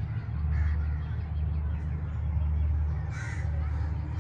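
Two short bird calls, the louder about three seconds in, over a steady low rumble.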